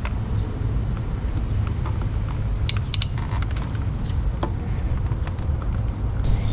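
A few sharp light clicks and clinks from small wire connectors and hand tools being handled during wiring work, over a steady low rumble of wind on the microphone.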